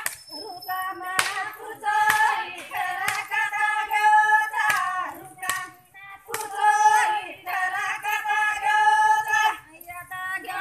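Women singing a Banjara devotional song (bhakti geet) in phrases, with hand claps keeping time. The singing drops away briefly about six seconds in and again near the end.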